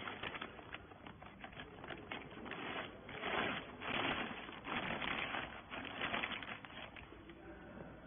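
Thin plastic bag crinkling and rustling as it is handled around a compressed rag bale at the baler's outlet: a run of irregular rustles, loudest in the middle, fading near the end.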